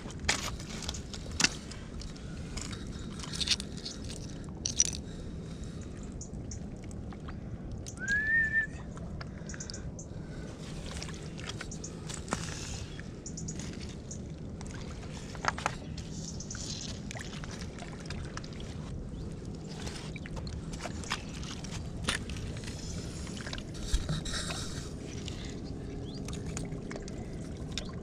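Scattered clicks and knocks of stones underfoot as someone in rubber boots walks and searches over stony mud, over a steady low rumble. About eight seconds in, a short rising whistle sounds once.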